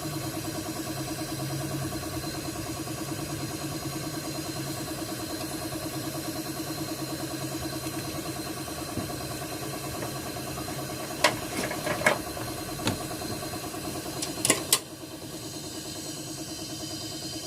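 Steady mechanical hum with a fast, even pulse, like a running motor or engine. Late on, a few sharp clicks and knocks come in quick succession, and the hiss above the hum drops after them.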